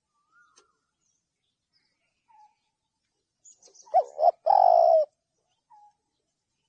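Spotted dove cooing: two short coos followed by a longer drawn-out coo about four seconds in, with a few faint short calls and high chirps around it.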